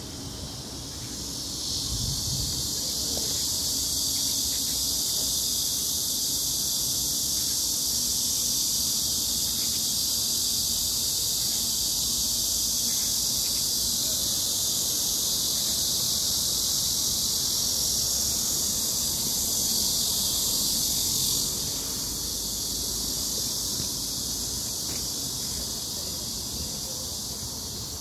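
Cicadas buzzing in a steady, high-pitched chorus that swells about two seconds in and eases off a little about twenty seconds later.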